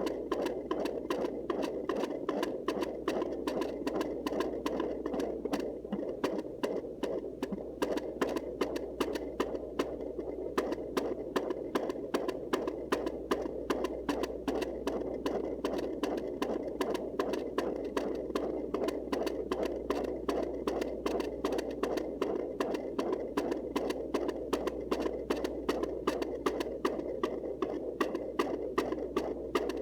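Fetal heartbeat heard through the speaker of a Sonoline C handheld fetal doppler: a fast, regular whooshing pulse of about two and a half to three beats a second, over a low steady hum.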